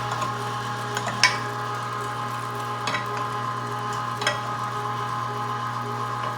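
Weston #32 Butcher Series 1.5 horsepower electric meat grinder running steadily as it grinds chunks of deer meat, a steady hum broken by a few sharp clicks.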